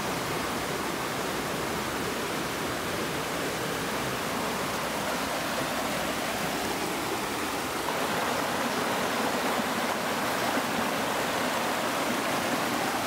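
Shallow mountain stream rushing over rocks in a steady wash of water noise, a little louder from about eight seconds in.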